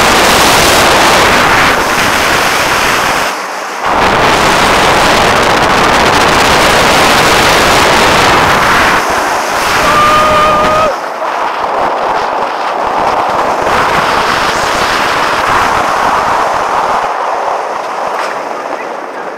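Loud wind rush on the front-seat onboard microphone of a Bolliger & Mabillard giga coaster at speed, mixed with the train running on its steel track. The rush drops sharply about eleven seconds in as the train slows.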